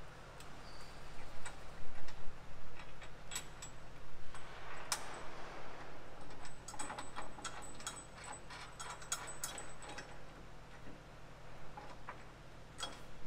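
Irregular metallic clicks and light taps from bolts, nuts and a steel traction-bar bracket being fitted by hand to the underside of a pickup's frame. The clicks come quicker and closer together in the middle.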